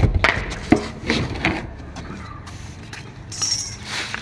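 A few light knocks and clicks of plastic pipe fittings being handled in the first second and a half, then a brief high-pitched sound about three and a half seconds in.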